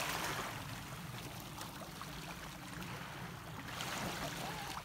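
Shallow seawater lapping and trickling around a wading angler, a steady rush of water that is a little louder at the start.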